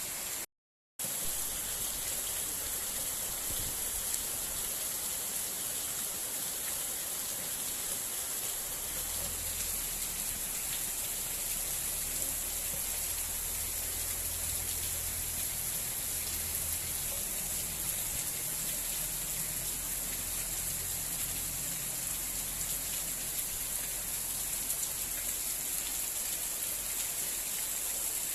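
Heavy rain falling steadily, a dense even hiss, broken by a brief total dropout about half a second in.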